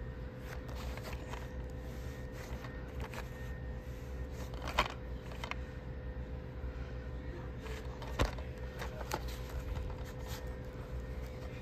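A plastic DVD case handled and turned over in the hand: scattered light clicks and scrapes, the sharpest about 5 and 8 seconds in, over a steady low hum.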